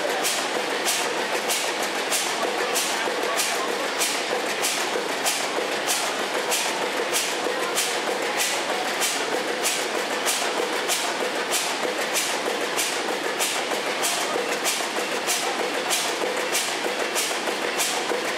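Machinery running with an even, regular beat, nearly three strokes a second, over a steady mechanical noise.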